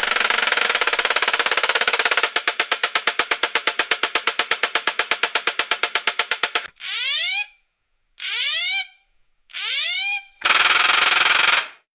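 Small nail dryer fan motor rattling with a fast buzz, then a rapid even pulsing of about ten beats a second. It is then switched on briefly three times, each time spinning up with a rising whine, and ends with a loud buzzing run.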